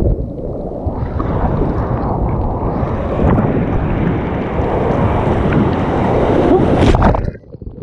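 Breaking surf and whitewater rushing around a kayak, with wind buffeting the camera microphone. The rush builds steadily and peaks in a loud crash of a breaking wave about seven seconds in, then drops away suddenly.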